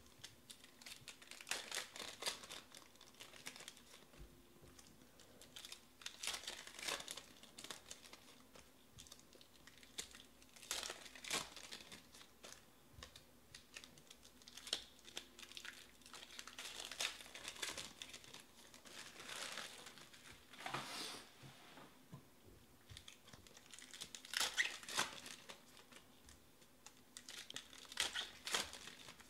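Foil trading-card packs being crinkled and torn open by hand: short crackling, tearing bursts that come every few seconds.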